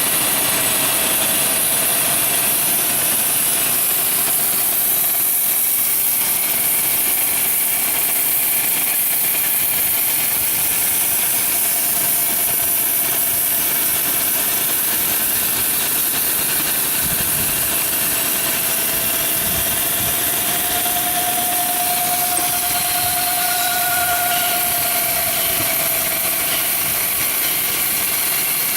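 Cincinnati EC380 grinder running a test grind on a part: a steady high hiss of the grinding with a faint whine underneath that rises slightly in pitch about two-thirds of the way through.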